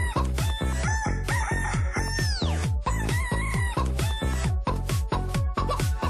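Dance track built from sampled chicken clucks and crowing, set over a fast, steady kick-drum beat, with a falling sweep about two seconds in.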